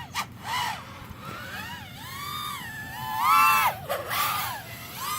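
Racing FPV quadcopter's motors and propellers whining, the pitch swooping up and down as the throttle is punched and eased, with a loud surge a little past the middle.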